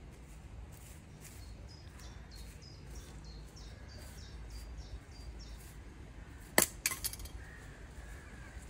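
A small songbird singing a quick series of short, high notes, each falling in pitch, for the first half. About two-thirds of the way through comes one sharp clink, the loudest sound, followed by two or three lighter clicks.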